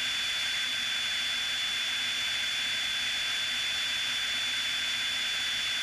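Steady cruise noise of a single-engine Piper Cherokee, heard mostly as an even hiss with a thin, steady high whine and little low drone, as picked up through the aircraft's headset intercom.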